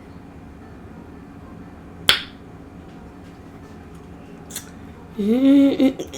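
A sharp click about two seconds in and a fainter one later, then near the end a loud burp that rises in pitch and then holds, with a short second pulse.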